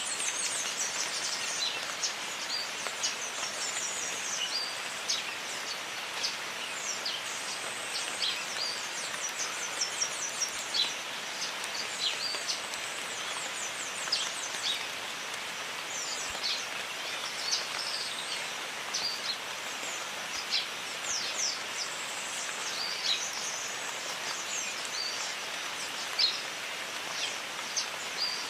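Jungle rain: a steady hiss of falling rain, with many short, high, falling chirps of birds calling over it.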